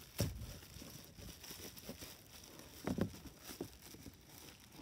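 Clear plastic bag crinkling and rustling as it is pulled off a folded plastic goose decoy, with two louder crackles: one just after the start and one about three seconds in.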